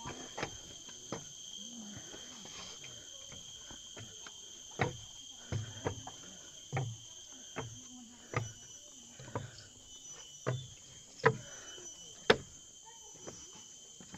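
Tropical forest insects hold a steady, high-pitched drone throughout. Over it comes a series of thuds about once a second, like footsteps on the forest floor, with two sharper, louder ones near the end.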